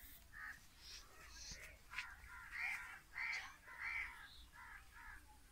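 A crow cawing repeatedly, a series of short harsh calls about two a second, louder in the second half.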